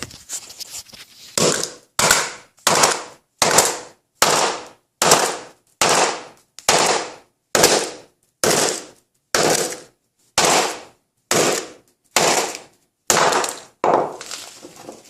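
A small mallet striking a smartphone over and over, about sixteen sharp blows a little under a second apart, smashing its glass and body.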